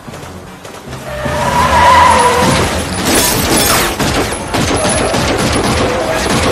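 Car-chase sound effects: cars racing with tyres squealing and skidding, loud from about a second in.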